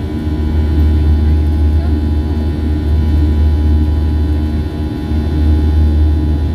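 Inside the cabin of a Boeing 737-700 climbing after takeoff: a steady low rumble from its CFM56-7B turbofan engines at climb power, with a thin steady whine over it.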